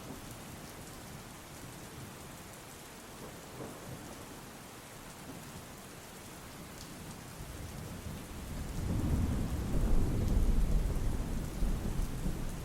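Steady rain. A low roll of thunder builds after about seven seconds, is loudest a little later and eases off near the end.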